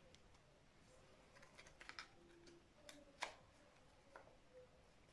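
Faint clicks and rustles of cardboard puzzle pieces being picked out of a wicker basket and handled, with one sharper click a little past three seconds in.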